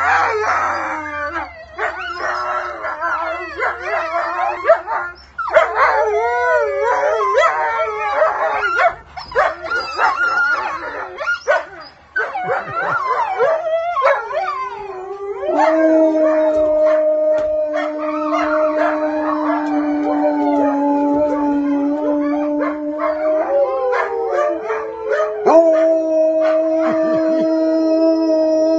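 Wolfdogs and a wolf howling together in a chorus of overlapping, wavering howls. About halfway through this gives way to a single wolfdog howling long, steady notes, with a falling break about two-thirds in before it holds another note.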